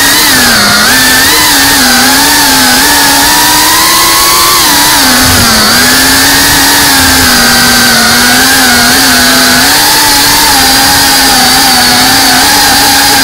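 FPV quadcopter's electric motors and propellers whining loudly, picked up close by the drone's own onboard camera. The pitch holds fairly steady, wavering with the throttle and dipping briefly about five seconds in.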